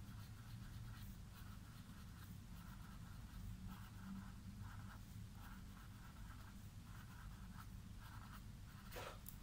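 Faint scratching of a pen drawing short strokes on sketchbook paper, one after another, over a low steady hum.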